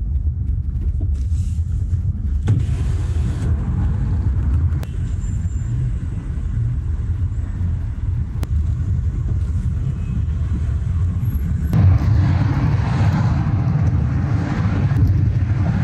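Car cabin noise while driving: a steady low rumble of engine and tyres. It turns louder and hissier near the end.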